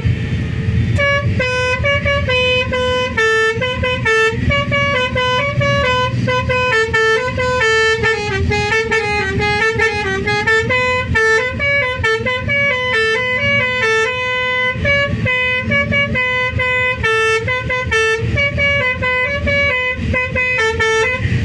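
Bus telolet horn, a multi-note air horn, playing a quick tune of short notes that step up and down, over the low rumble of the bus engine.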